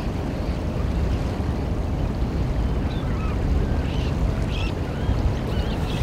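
Steady low rumble of wind on the microphone and surf, with faint short wavering bird calls coming in from about halfway through.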